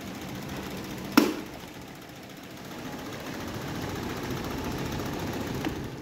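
Electric pedestal fans running, a steady whirring rattle from their motors and blades that grows somewhat louder in the second half. A single sharp knock about a second in stands out above it.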